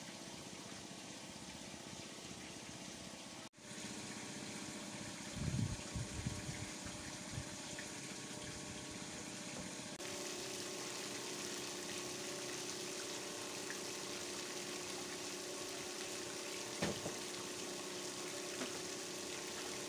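Water spraying and splashing from a fish-cage aerator fountain, over a steady hum. There are a few dull thumps about a third of the way through.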